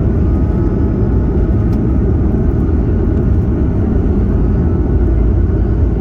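Airbus A220's Pratt & Whitney PW1500G geared turbofans running steadily at high thrust, a loud, even rumble heard from inside the cabin, with faint steady whining tones over it.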